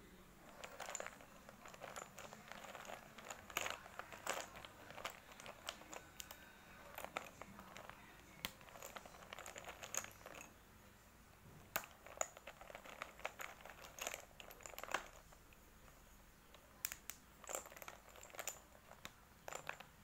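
Fingers rummaging through a pile of white chalk sticks, the sticks clicking and clattering against each other in irregular clusters, with a short lull about three-quarters of the way through.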